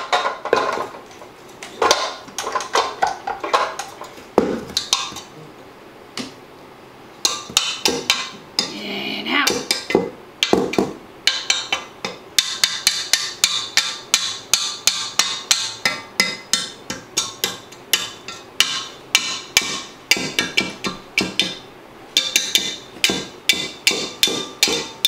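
A stand mixer's wire whip attachment knocking and clicking against a stainless steel mixing bowl, a few scattered strikes at first, then from about seven seconds in a steady run of sharp strikes about four a second.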